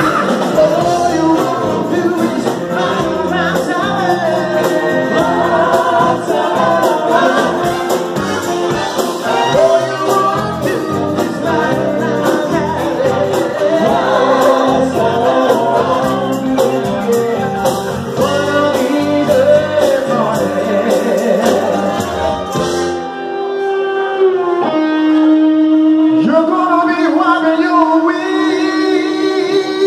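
Live band with male and female singers over electric guitar and a drum beat, played loud through the PA. About 23 seconds in the beat and bass drop out, leaving held notes and voices.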